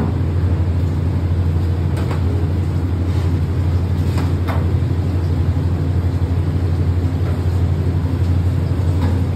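Steady low mechanical hum of kitchen machinery, with a few faint clicks.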